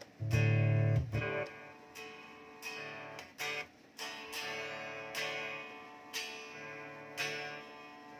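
Electric guitar played through a Zoom G1Xon multi-effects pedal. A heavy, loud low chord cuts off about a second and a half in; after it, strummed chords ring out and fade, about one a second.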